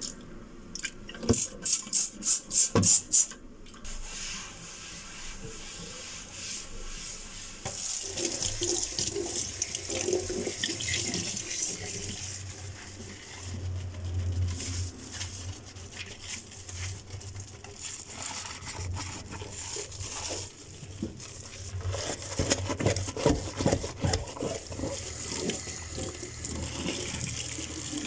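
Water running, with scattered clicks and knocks; a quick series of sharp knocks comes in the first few seconds.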